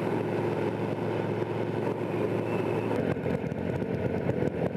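Motorcycle engine running steadily at road speed with road noise. About three seconds in, the sound changes abruptly to a rougher, pulsing engine note.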